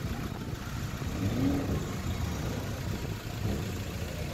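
Car engines running at low speed as a queue of cars idles and pulls away, with one engine's note briefly rising and falling about a second and a half in.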